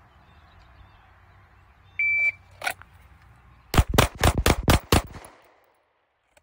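A shot timer beeps once to start. About two seconds later a red-dot semi-automatic pistol fires six rapid shots in a little over a second, a Bill Drill string.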